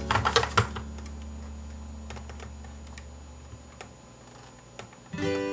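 Scattered light clicks and taps of fingers handling a plastic toy car and pressing a sticker plate onto its bumper, after the last notes of background music die away; the music starts again near the end.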